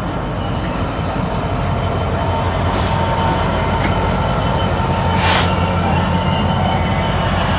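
GB Railfreight Class 66 diesel locomotive 66727 passing at the head of a freight train, its EMD two-stroke V12 engine giving a steady drone while the wheels squeal with thin high tones. A brief hiss comes about five seconds in.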